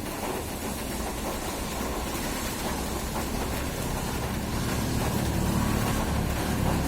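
Steady rain, a dense even hiss over a deep low rumble that grows louder in the second half.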